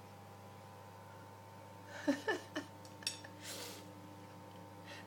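A flat-faced Persian cat eating from a flat plate, which it finds hard: a quick run of small chewing and plate noises about two seconds in, a click, then a short breathy sniff.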